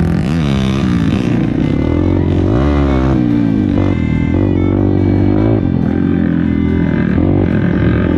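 Trail motorcycle engine revving, its pitch sweeping up and down twice in the first few seconds and then running steadier, with background music.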